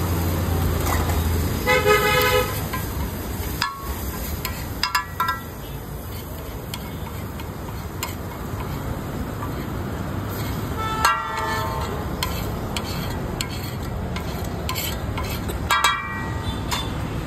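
Street-stall cooking on a hot griddle: a spatula stirring and clinking in the pan over a steady sizzle as a red tadka fries, with road traffic and car horns honking three times.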